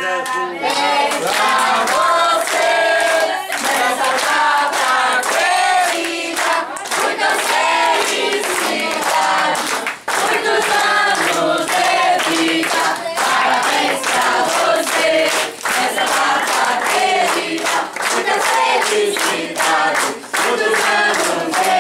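A crowd of family and guests singing a birthday song together, clapping along in a steady rhythm.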